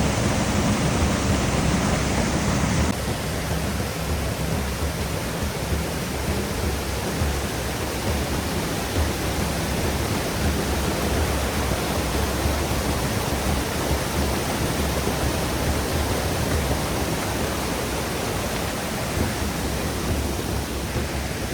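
Waterfall on a creek running high with spring water: a steady, dense rush of falling water. About three seconds in, the rush turns slightly quieter and thinner.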